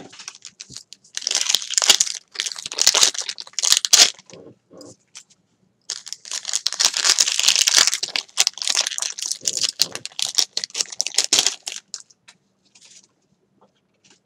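Crinkling and tearing of the packaging of a Pokémon TCG BREAKpoint booster pack being opened by hand, in two long spells of rustling with small crackles between.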